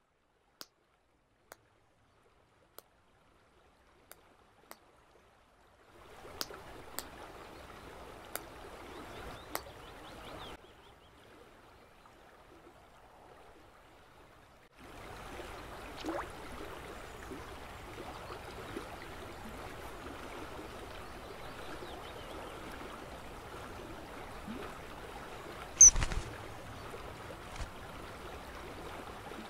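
Running river water, a steady rush that sets in about halfway through, after a stretch of near silence broken by faint clicks. One sudden sharp sound stands out near the end.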